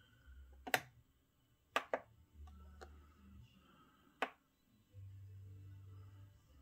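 A few sharp plastic clicks, about five spread over several seconds with a close pair about two seconds in, as fingers press and hold the button on top of a MOOSOO robot vacuum, over a faint low hum.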